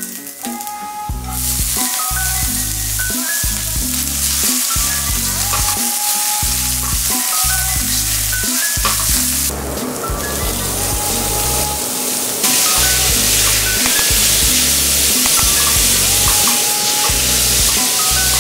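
Chopped onion and garlic sizzling in hot oil in a steel frying pan, stirred with a silicone spatula. The sizzle grows louder and fuller from about ten seconds in, when minced meat goes into the pan and is stirred. Background music with a steady beat plays throughout.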